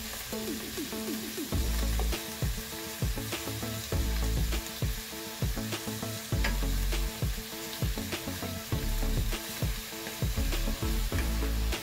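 Diced pork with onion and garlic sizzling in a nonstick wok as it browns, stirred with a wooden spatula that knocks and scrapes against the pan many times.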